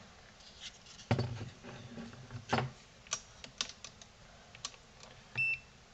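Clicks and light knocks of a PS4 power supply circuit board being handled, turned over and set down on a wooden bench, with one short high beep from a digital multimeter near the end.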